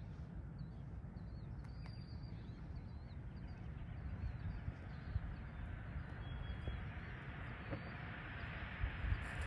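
Outdoor ambience: small birds chirping in the first few seconds over a low steady rumble, then a car's road noise growing steadily louder as it approaches.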